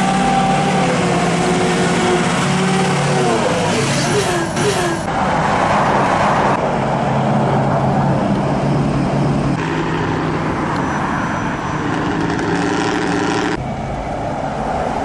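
Lifted pickup trucks driving past one after another, their engines running, with the engine pitch rising and falling around four to five seconds in. The sound changes abruptly a few times between passes.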